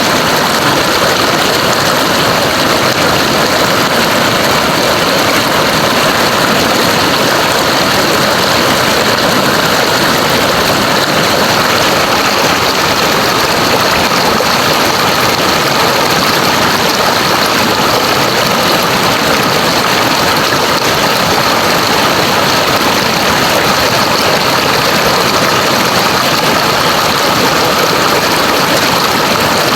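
River water rushing in a steady, loud, unbroken wash.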